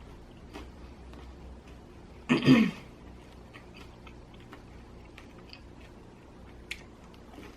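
A woman coughs once, briefly, about two and a half seconds in, a cough from a chest cold. Faint small mouth and chewing clicks from eating fill the rest.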